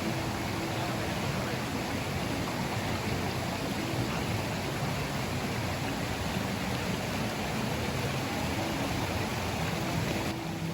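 Steady rush of water flowing over the rocks of a river, an even unbroken sound.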